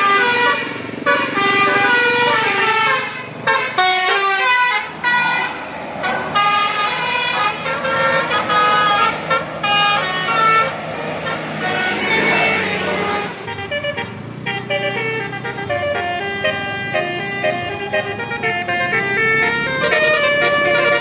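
Vehicle horns honking over and over, several different pitches starting and stopping and overlapping, over traffic noise.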